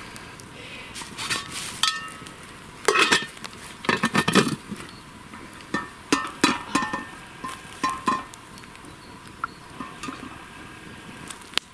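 Metal cooking pot and its lid clinking and clattering as the lid is set on and the pot is lifted and hung from a tripod hook, with brief metallic ringing. The loudest clatter comes about three to four and a half seconds in.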